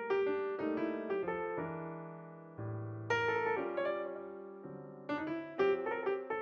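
Solo piano music: notes and chords struck one after another and left to fade.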